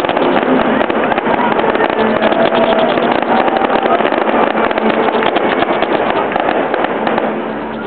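Fireworks crackling: a dense, rapid run of small pops over a steady hiss, thinning and falling off near the end.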